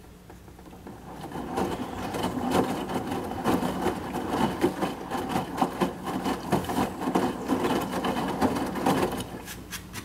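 Front-load washing machine (Midea HealthGuard Smart 13 kg) turning its drum during the pre-wash, wet laundry tumbling and sloshing inside with rapid rubbing and clicking. It starts about a second in and stops near the end, over a steady low hum.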